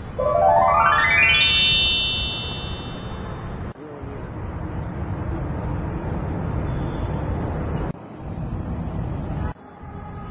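A rising whistle sound effect climbing steeply in pitch over about a second, then held briefly. It is followed by a steady low background noise that cuts off abruptly a few times.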